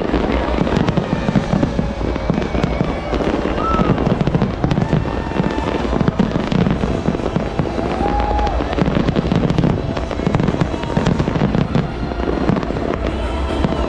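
Aerial fireworks going off in a dense, continuous barrage of booms and crackling, with a few short whistles among them.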